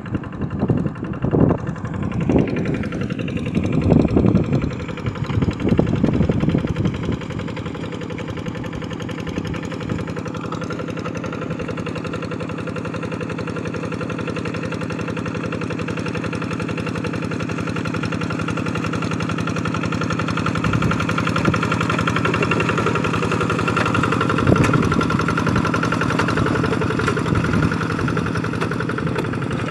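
Two-wheel hand tractor's Kubota RD 85 single-cylinder diesel running steadily under load while it puddles a flooded rice paddy, gradually getting louder as it draws nearer. The first several seconds hold irregular rumbling.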